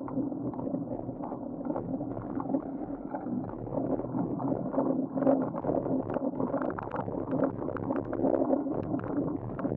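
Riding noise on a bicycle-mounted camera: wind rushing over the microphone, mixed with motorcycle and tricycle engines running on the street, one engine humming steadily.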